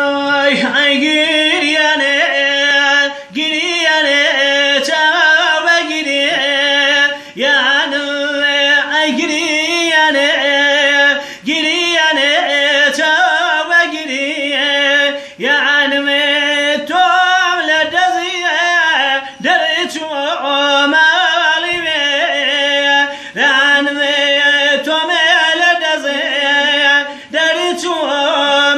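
A man singing unaccompanied in traditional Kurdish style: long held notes with a wavering, ornamented pitch, broken by short breaths every few seconds.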